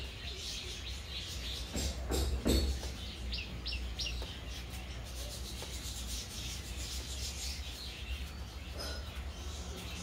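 Small birds chirping, with a quick series of about four short high chirps some three and a half seconds in. A few soft knocks or rubs come about two seconds in, over a steady low hum.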